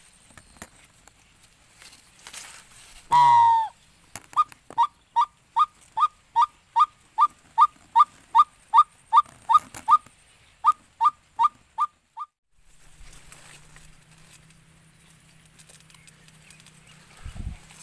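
A hunter's blown bird-call lure imitating the white-breasted waterhen's 'ruak-ruak' call, used to draw in spotted doves. One loud falling note about three seconds in, then a run of about twenty short, sharp notes at roughly two and a half a second, stopping about twelve seconds in.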